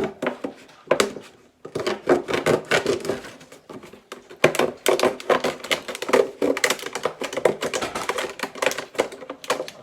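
A knife cutting a hole in a cardboard milk carton: a dense run of irregular clicks, crackles and scrapes as the blade punctures and saws through the carton.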